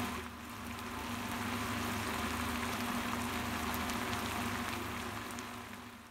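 Beef hanging tender and mushrooms sizzling and bubbling in butter and meat juices in a frying pan: a steady crackling hiss with a low steady hum underneath, fading out near the end.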